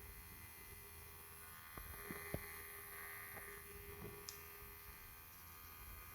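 Faint, steady hum of a small DC motor running, with a few light clicks about two seconds in.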